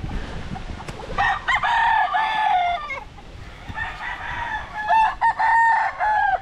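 Game roosters crowing. One long crow comes about a second in, and another near the end with other crows overlapping it.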